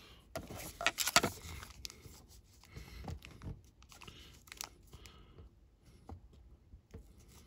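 Hard plastic graded-card slabs being picked up and handled: several clicks and scrapes of plastic against plastic in the first second or so, then scattered lighter handling noises that fade out about five seconds in.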